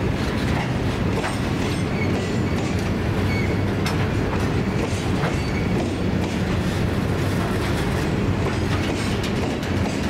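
A train rolling past: a steady low rumble, with wheels clicking over rail joints and a few brief high-pitched wheel squeals.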